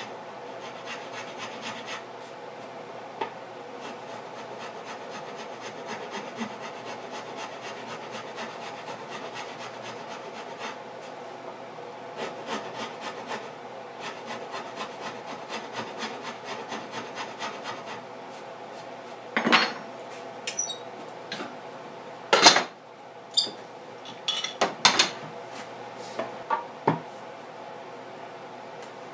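Steady hand-tool scraping and rasping strokes on the wood of a guitar body, shaping the contour at the neck heel. From about two-thirds of the way through, the scraping stops and several loud knocks and clunks follow as the wooden body is handled.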